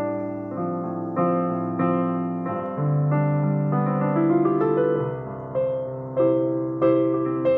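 Solo piano music playing slowly, a gentle chord or note struck about every half-second to second and left to ring.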